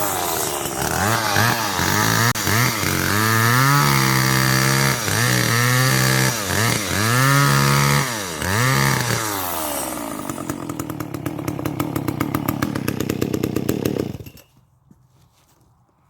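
Two-stroke chainsaw revving up and down repeatedly, then dropping to a lower, pulsing idle before cutting out about fourteen seconds in.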